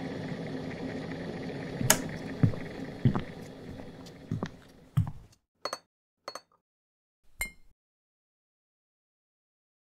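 Electric kettle heating, a steady rumble broken by irregular sharp clicks and knocks, which cuts off about five seconds in. A few short, light clinks follow.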